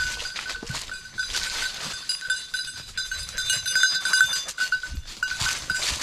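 A small bell on a Brittany bird dog's collar jingles continually in quick pulses as the dog moves, over footsteps crunching through dry leaf litter.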